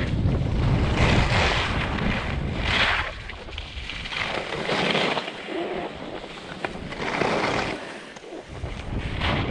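Wind buffeting the camera's microphone while skiing, with a hissing swish of skis on snow every two seconds or so.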